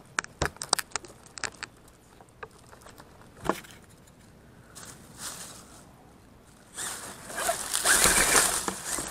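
Radio-controlled Redcat Gen7 rock crawler on a rocky trail: a quick run of sharp clicks and knocks, then one more knock, then from about seven seconds in, loud, steady splashing as it drives into water.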